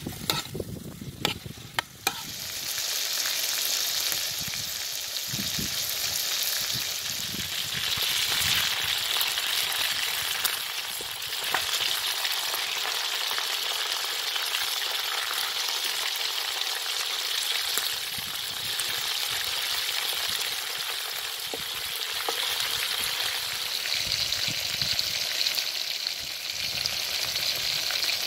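Chicken pieces sizzling steadily in hot oil in a saj pan. In the first couple of seconds a metal spoon clinks and scrapes against the pan as it turns the pieces, with a few soft knocks from stirring later on.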